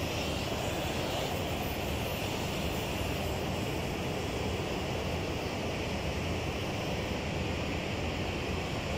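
Oxy-fuel cutting torch flame hissing steadily as it cuts boiler tube ends free of the tube sheet.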